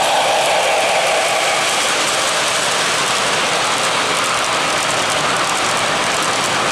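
Model train rolling past on three-rail track: the Weaver GE U25B locomotive's motor hum fades over the first couple of seconds as it passes, then a steady rattle and hiss of coal hopper wheels on the rails.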